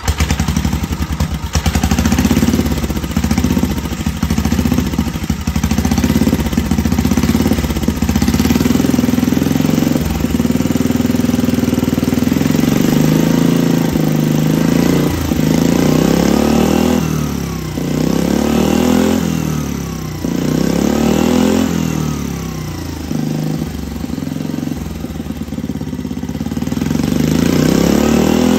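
Small carbureted engine with a homemade draw-through turbocharger running. About halfway in it is revved up and down in a run of quick throttle blips, each a rise and fall in pitch.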